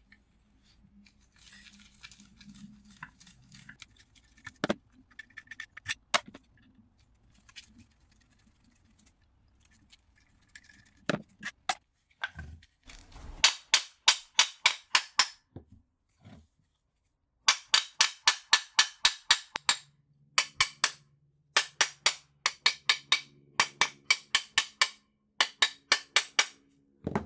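Hammer striking metal: a few scattered knocks, then from about halfway on quick runs of sharp taps, five or six a second, in bursts of two to three seconds.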